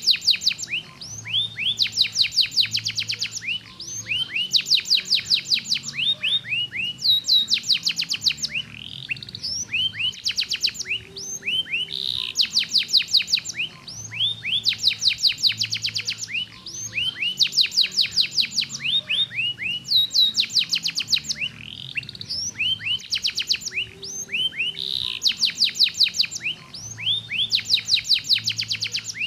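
Domestic canary singing: phrase after phrase of fast trills, each made of rapidly repeated, sweeping chirps.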